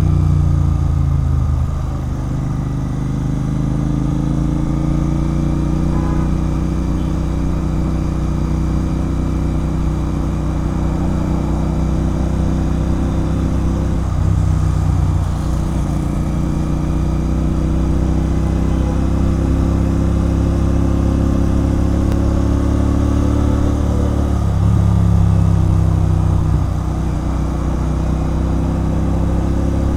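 Royal Enfield Continental GT 650's parallel-twin engine running through an aftermarket Red Rooster Performance exhaust while riding at a steady pace. The engine note shifts briefly twice, about halfway through and again near the end.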